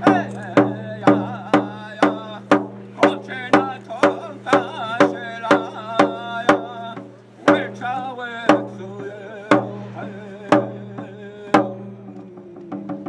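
A drum beaten in a steady beat of about two strikes a second, with voices singing over it in the middle; the beat then slows to about one strike a second and stops shortly before the end.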